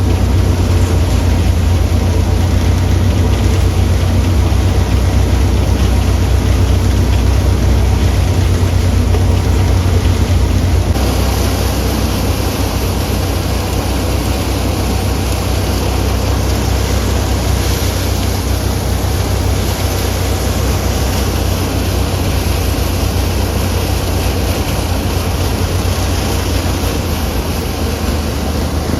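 A John Deere tractor engine and a Surjeet threshing machine running steadily, a deep even drone under a hiss. About eleven seconds in the low drone eases a little and the higher hiss grows louder.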